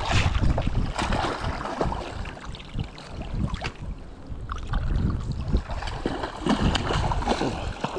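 Wind buffeting the microphone over river water, mixed with the splashing of a hooked chum salmon thrashing and rolling at the surface on the line.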